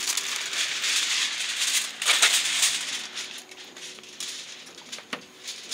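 Aluminium foil being pulled off its roll, crinkling and rustling, loudest in the first half, with a sharp crackle about five seconds in.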